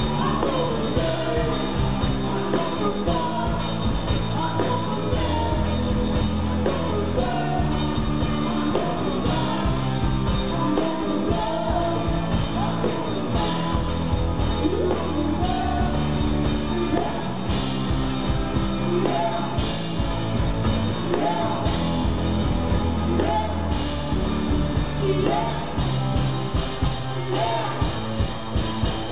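Rock band playing live through a stage PA: electric guitars, drums and keyboard with a woman singing lead.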